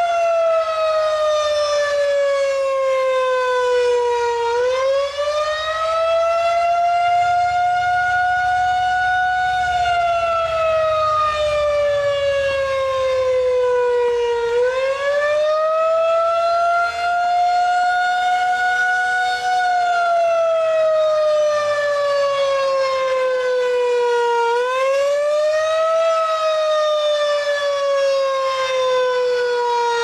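Federal Signal 2001-SRNB rotating warning siren sounding a wavering attack signal. Its single tone climbs over a few seconds, holds briefly, then sinks slowly, repeating about every ten seconds while the horn turns.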